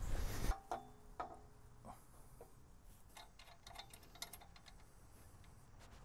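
Faint metal clinks and light ticks from the steel parts and bolts of a homemade sawmill carriage being handled and fitted, with a couple of brief ringing clinks about a second in.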